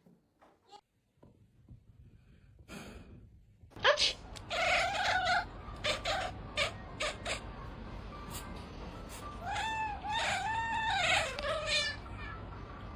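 Domestic cat meowing and yowling: a drawn-out call about a second after it starts, then a run of about four arching meows in quick succession, over a noisy background with a few sharp knocks.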